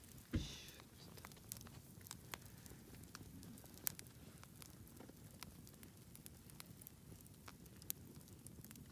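Wood campfire crackling, with scattered sharp pops and snaps. A louder thump comes about half a second in.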